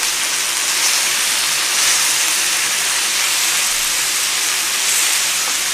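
Marinated pork ribs sizzling on a hot griddle: a steady, loud hiss of frying meat and steaming marinade.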